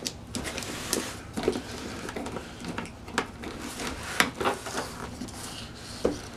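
Handling noises: irregular light taps, clicks and rustles as a boxed handheld vacuum and its packaging are turned over and handled.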